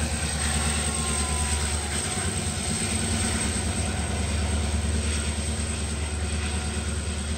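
Norfolk Southern diesel-electric locomotives running light in a multi-unit consist, passing close beneath with a steady, deep engine rumble.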